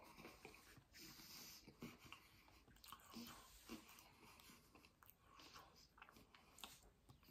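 Faint mouth sounds of a person chewing cheesecake and breathing through the nose, with a few soft clicks scattered through.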